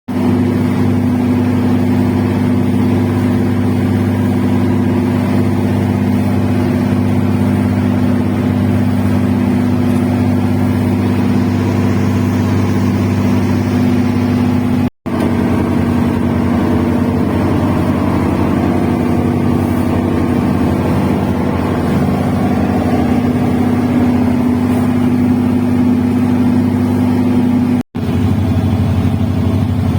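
Boat engine running steadily at a constant speed, with two very short dropouts, about halfway through and near the end.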